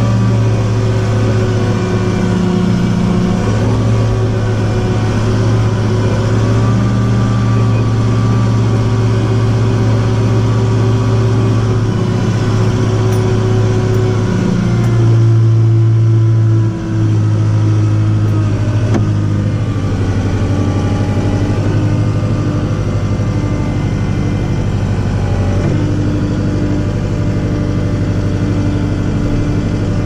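Compact tractor engine running steadily, heard from inside the cab while the tractor is driven slowly. About halfway through it briefly gets louder and shifts in pitch, dips for a moment, then settles back to a steady drone.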